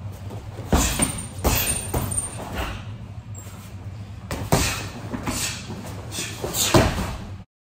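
Karate punches and kicks landing on a hanging heavy bag and a freestanding Versys striking dummy: a quick string of sharp thuds and slaps in two flurries, about eight hits in all, with a short lull in the middle.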